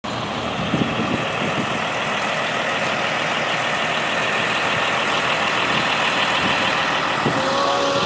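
Blue Bird bus engine idling steadily, with a few low thumps about a second in.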